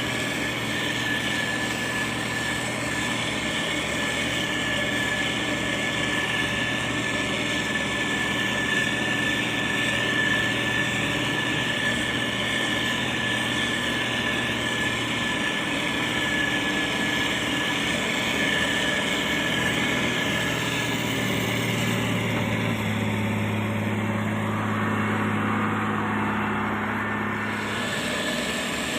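Motor grader's diesel engine running steadily, with a steady high whine over it that fades about two-thirds of the way through. For the last several seconds the engine note turns deeper and stronger.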